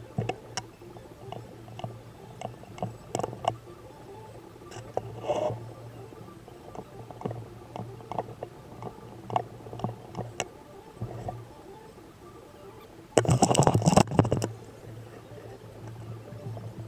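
Battery spot welder welding nickel strip onto lithium cells: a string of sharp, irregular clicks over a steady electrical hum, with a louder noisy burst lasting about a second and a half near the end.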